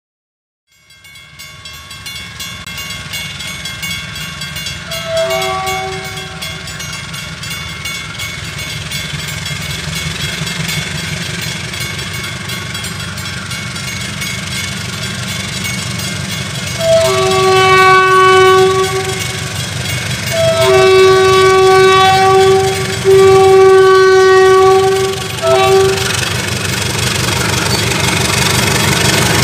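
GE diesel-electric locomotive approaching a level crossing, its engine rumble growing steadily louder. Its several-note air horn sounds one short blast about five seconds in, then a series of long blasts for the crossing from about 17 seconds until near the end.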